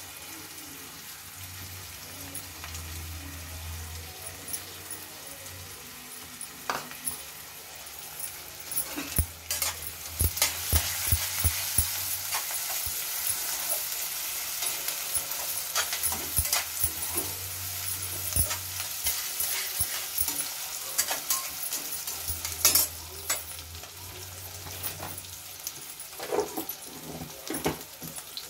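Sliced vegetables sizzling in hot oil in a steel kadhai, with a slotted metal spoon clinking and scraping against the pan as they are stirred. The sizzle gets louder about ten seconds in, with a quick run of clinks around then and more scattered clinks later.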